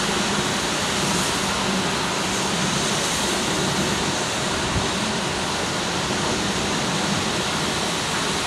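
Steady rushing hiss of a steam locomotive drifting in towards the platform, with a faint low hum underneath.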